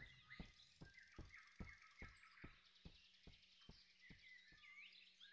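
Faint forest ambience with small birds chirping, and a slow, even series of soft low knocks, about two and a half a second, that stops near the end.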